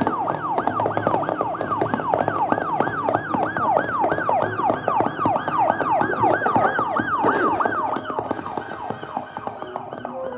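Police siren in a fast yelp, its pitch sweeping up and down about three times a second, dropping in level about eight seconds in.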